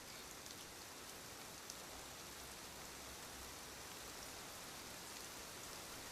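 Steady, even rain-like hiss with a few faint ticks; no snore is heard in this stretch.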